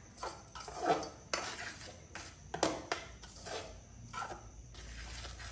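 A metal spoon stirring a thick mixture of cocoa powder and condensed milk in a metal saucepan, scraping and clinking against the pan's bottom and sides in irregular strokes about two a second.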